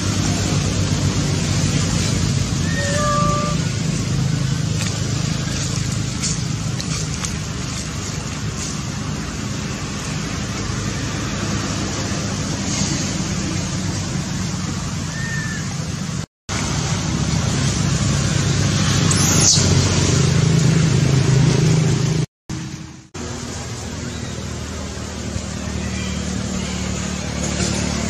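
Steady engine and traffic noise with a low hum, and a few short high chirps about three seconds in and again around fifteen seconds. The sound cuts out completely for a moment twice in the second half.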